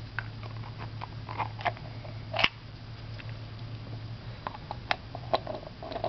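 Small clicks and scrapes of 3D-printed plastic puzzle-box parts being handled, twisted and fitted together, with a sharper click about two and a half seconds in and another near five seconds. A low steady hum lies underneath.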